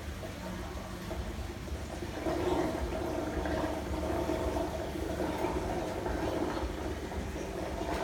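Aquarium air stone bubbling steadily over a low pump hum, with a louder murmur joining about two seconds in.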